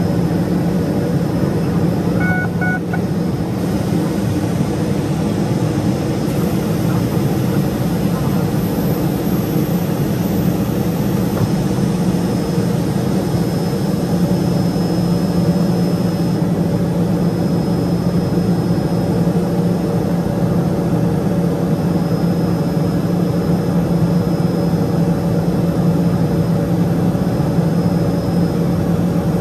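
Cabin noise of a Cessna P210 Silver Eagle's Rolls-Royce (Allison) 250 turboprop engine and propeller at steady power on approach: an even, unchanging drone with a faint high whine that comes and goes above it.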